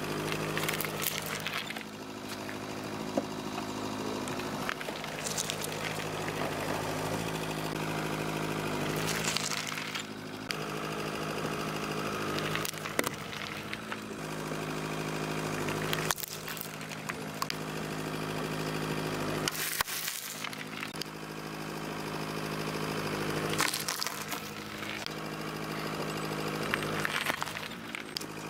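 A car engine idling steadily while its tyre rolls over tomatoes and other soft fruit on gravel, crushing them with a burst of crunching and splatting about every three to four seconds.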